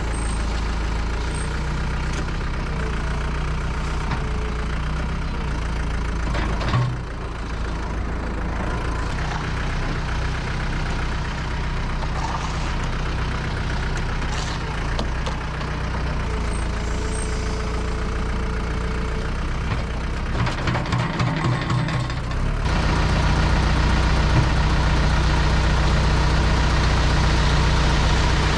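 Concrete mixer truck's diesel engine running steadily, getting louder for the last several seconds.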